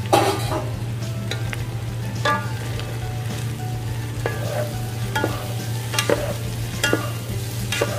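Wooden spatulas tossing shredded red cabbage in a hot frying pan over high heat, with a frying sizzle. The spatulas knock against the pan about seven times, the loudest right at the start. A steady low hum runs underneath.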